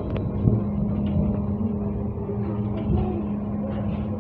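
Cabin ride noise of a BKM trolleybus under way: a steady low hum and road rumble, with a couple of short clicks right at the start.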